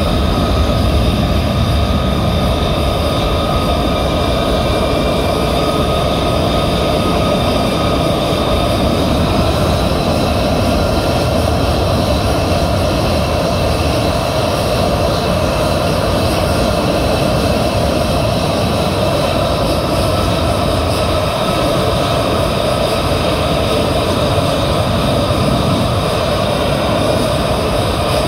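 Two F-35 fighters' F135 turbofan engines running on the ground, a loud steady jet whine with several high tones over a deep rumble.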